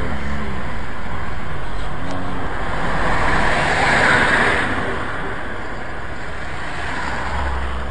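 Steady outdoor traffic noise with a low rumble, and a vehicle's road noise swelling and then fading away about three to five seconds in.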